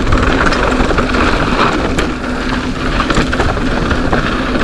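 Mountain bike riding down a dirt trail: steady wind rush on the microphone and tyre noise on loose ground, with frequent small rattles and knocks from the bike.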